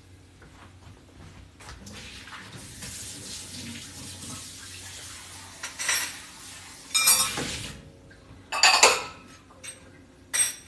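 Kitchen faucet running steadily for a few seconds as a bowl is filled with cold water, then a ceramic bowl and dishes clink and clatter in several sharp knocks.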